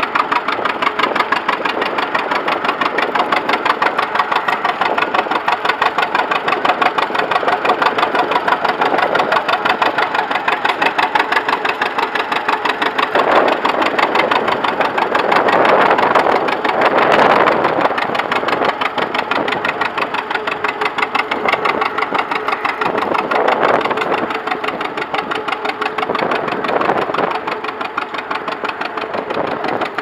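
John Deere Model AR tractor's two-cylinder engine running under load with a steady, rapid beat as it pulls a plough, loudest about halfway through as it passes close.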